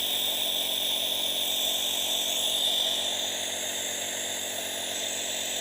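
Steady whirring hum of a small electric motor with a high whine, running without a break.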